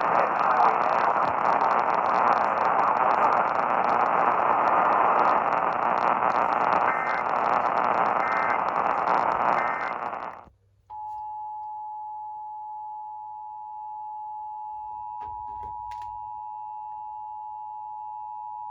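A steady hiss of static that cuts off about ten seconds in. It is followed by the Emergency Alert System two-tone attention signal, two steady tones sounding together, held for about eight seconds: the sign that an emergency alert message is about to be read.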